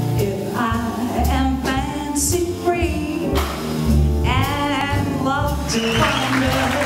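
A female jazz vocalist sings a swing number with a small band, with one long note held with vibrato about four seconds in. Audience applause starts about a second before the end.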